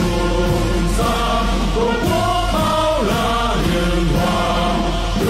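Background music: a choir singing long held notes over a steady instrumental accompaniment.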